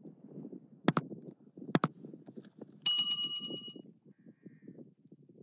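A bright bell ding rings for about a second, a little under halfway through. Before it come two sharp double clicks, and low wind rumble on the microphone runs underneath.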